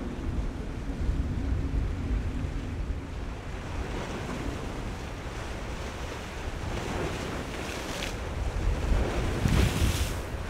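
Wind rumbling on the microphone over waves and spray, with a boat's outboard engine hum fading out in the first second. Louder bursts of rushing water come near the end.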